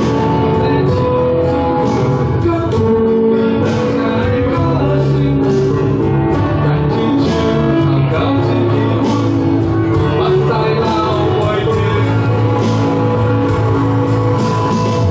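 Live rock band playing a song on electric guitars, electric bass and drum kit, with a man singing lead over a steady drum beat.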